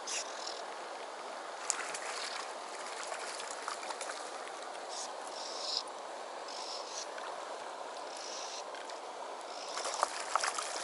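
Steady rush of flowing river water, with a few sharp splashes near the end as a hooked cherry salmon thrashes at the surface.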